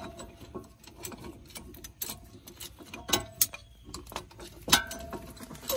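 Scattered metal clicks and clinks as a steel C-clamp is fitted over a disc brake caliper and its screw adjusted, with a few sharper knocks of metal on metal.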